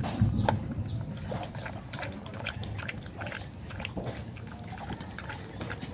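Newborn puppies suckling at their mother and the mother dog eating soft food from a bowl: a stream of irregular wet clicks and smacks. A low rumble lies underneath, strongest at the very start.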